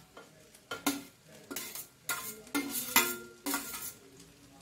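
Metal spoon scraping and knocking fried vegetables out of a steel bowl into a steel pot of rice frying in ghee: a string of clinks and scrapes about every half second, some with a brief metallic ring, over a faint sizzle.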